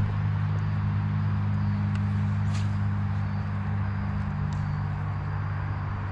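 Bow-mounted electric trolling motor running with a steady low hum, which drops away shortly before the end, over a few faint clicks.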